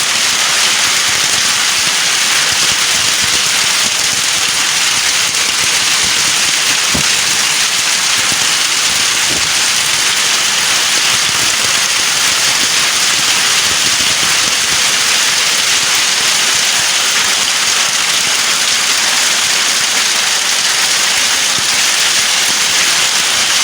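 Heavy hail falling: a loud, steady, dense patter of hailstones striking surfaces, with a couple of sharper knocks near the middle.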